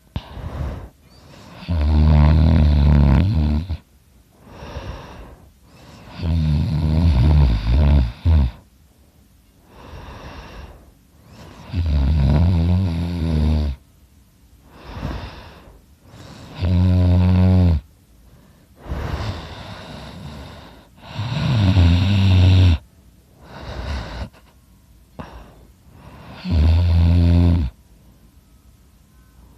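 A sleeping person snoring really loud: six long, low snores about every four to five seconds, with quieter breaths between them.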